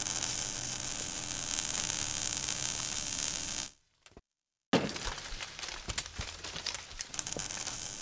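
Logo-reveal sound effect: a steady hissing crackle that cuts off suddenly about three and a half seconds in, then after a short gap a sharp hit followed by a fizzing, crackling tail.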